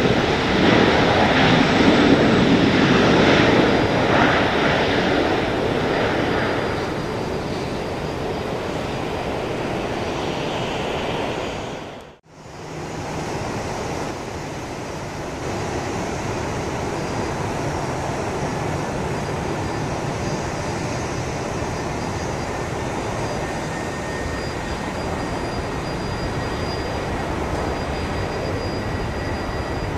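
Jet airliner engines. A Boeing 737-800's CFM56 turbofans rumble loudly as it rolls along the runway, the noise easing after about six seconds. After a cut, a steady, quieter jet hum with a faint high whine comes from a taxiing Airbus A320-family airliner.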